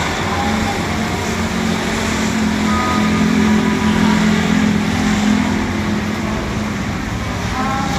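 Steady rain noise, with a motor vehicle's engine hum swelling in the middle and fading again as it passes.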